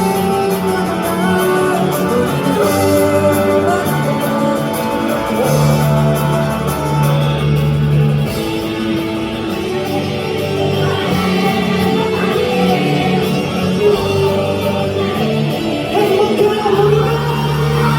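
Rock band music with a singing voice, steady and loud throughout.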